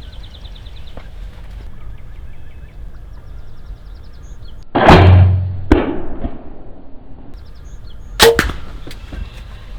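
Mathews ARC compound bow shot about five seconds in: a loud sudden release with a short decaying tail, then a sharp crack just under a second later. Another sharp crack comes about eight seconds in.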